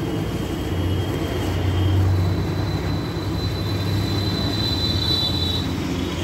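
Suzuki Access scooter's freshly rebuilt single-cylinder four-stroke engine running steadily, a low even hum with a thin high whine over it.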